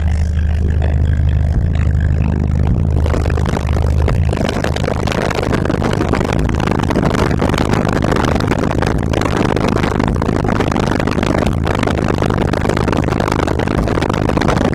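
Car subwoofers playing a loud, deep, steady bass tone. About three to four seconds in it breaks up into a harsh, noisy buzz and rattle across the whole range, which holds to the end.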